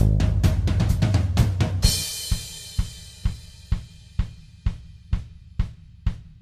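Background music on a drum kit: a full band mix ends with a cymbal crash about two seconds in, and then single drum hits keep time about twice a second.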